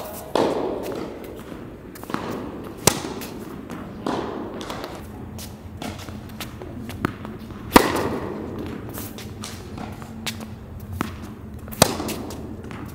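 Tennis ball struck by rackets and bouncing on an indoor hard court: sharp pops every second or two, three of them much louder than the rest, each ringing on in the echo of the hall. A low steady hum joins about halfway through.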